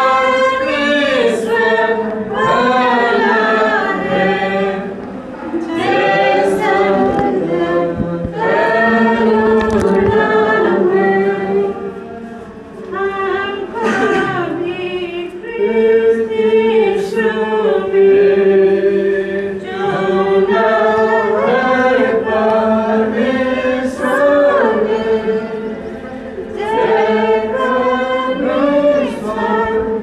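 A group of voices singing a church hymn together, in long held phrases.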